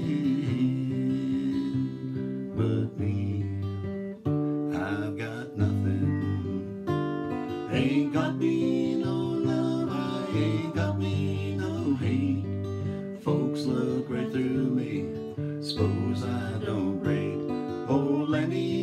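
Acoustic guitar strummed through an instrumental break between verses of a slow blues song, the chords struck again every second or so.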